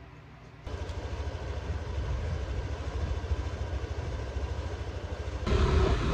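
Motorcycle engine running with a low, uneven rumble of wind on the microphone, cutting in abruptly under a second in and growing louder near the end as the bike rides off.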